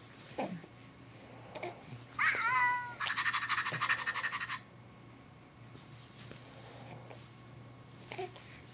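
A baby playing with toys. About two seconds in comes a short high-pitched wavering squeal, then a fast rattling buzz for about a second and a half, then faint light knocks of toys.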